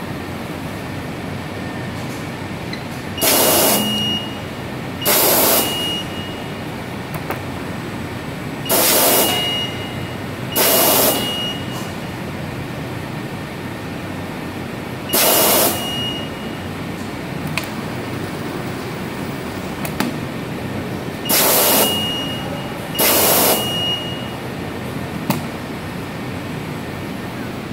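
Checkweigher conveyor belts running with a steady hum, broken seven times by short hissing air blasts from the pneumatic rejector, each under a second long, knocking rejected chicken feet off the belt.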